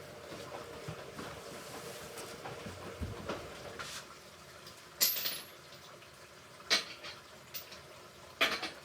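Hoover Ecologic Computer Washer 1300 washing machine in its rinse cycle: the drum tumbling wet laundry with water sloshing, and a few sharp knocks in the second half.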